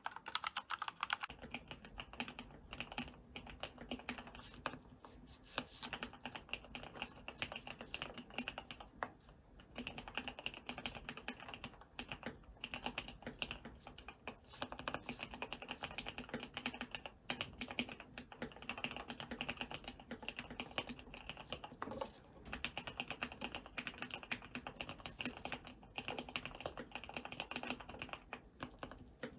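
Typing on an ABKO AR87 mechanical keyboard with Cherry MX Red linear switches, lubed with Super Lube grease spray, and PBT dye-sublimated Cherry-profile keycaps. The keys are pressed in quick runs with brief pauses every few seconds.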